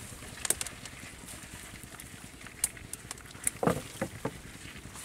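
Scattered clicks and small knocks as a mesh fish trap is handled over the side of a small wooden boat, with a few heavier knocks about three and a half to four seconds in.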